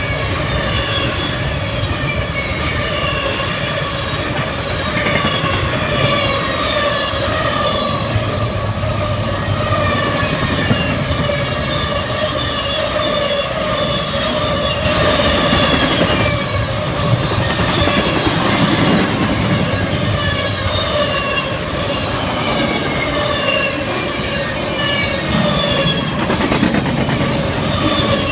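Double-stack intermodal freight train rolling past at close range: steel wheels on rail with a steady rumble and clickety-clack, and high squealing tones that slide down in pitch over and over as the cars go by.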